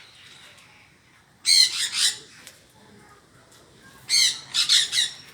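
A bird squawking in two loud bursts of harsh, rapid calls, the first about a second and a half in and the second about four seconds in.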